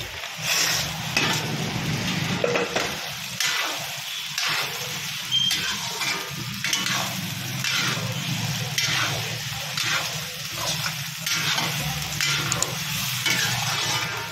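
Oil and spice paste sizzling in a black iron wok while fried chicken pieces are stirred in with a metal spatula, which scrapes the pan in strokes about once a second. A steady low hum runs underneath.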